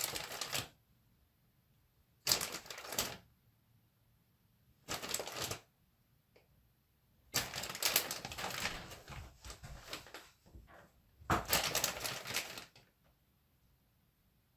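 Frozen tater tots being handled and laid in rows, clicking and rattling against each other and their bag in about five short bursts, with quiet gaps between.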